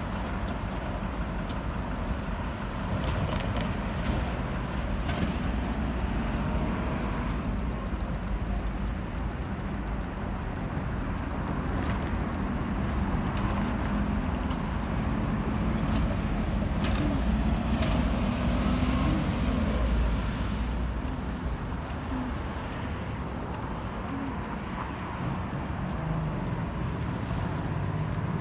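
City street traffic: cars and heavier vehicles such as trucks passing steadily, with an engine drone swelling in the middle.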